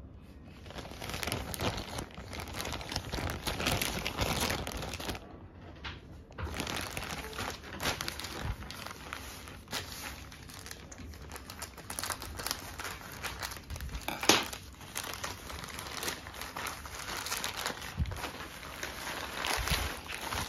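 Plastic courier mailer bag crinkling as it is handled, then cut with scissors and torn open by hand. There is a short lull about five seconds in and a single sharp click about fourteen seconds in.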